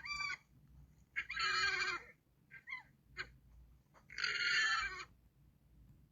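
Llama calling: a short call at the start, then two long, harsh calls about three seconds apart, with faint brief sounds between them.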